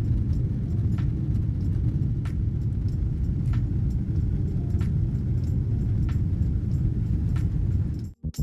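Steady low rumble of airliner cabin noise during the climb after takeoff: jet engines and airflow heard through the fuselage. Faint regular ticks come about every second and a quarter, and the rumble cuts off suddenly just before the end.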